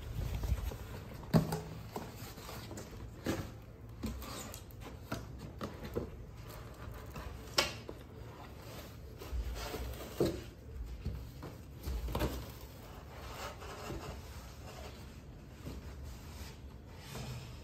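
Cardboard carton and the subwoofer's white wrapping rubbing, scraping and rustling as the heavy subwoofer is worked out of its box, with scattered knocks and thumps of handling.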